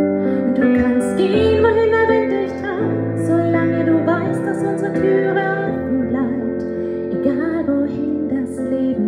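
A woman singing a ballad in German into a microphone through a PA, over an instrumental accompaniment of long held chords.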